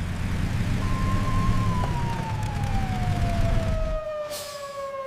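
Emergency-vehicle siren sound effect wailing: one slow fall in pitch over about four seconds that turns upward again at the end, over a steady low vehicle rumble.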